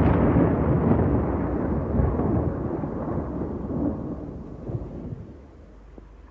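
Recorded thunder: a long, low roll of thunder rumbling and slowly dying away, with a faint hiss of rain under it.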